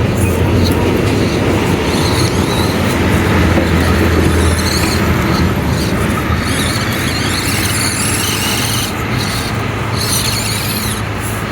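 Micro-scale RC rock crawler driving, its small electric motor and gears whining steadily under a loud, steady noise.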